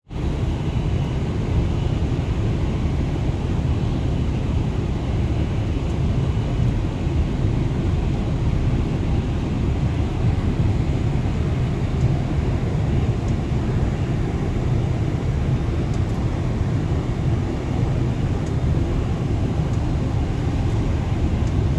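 Steady rumble of airflow and engines on the flight deck of a Boeing 767-300ER descending on final approach, with a faint high whine over the first few seconds.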